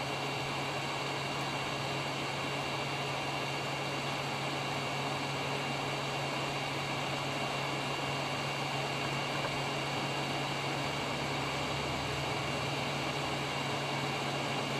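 Hot-air soldering station blowing steadily onto a circuit-board chip to melt its solder: a constant fan hiss with a low hum.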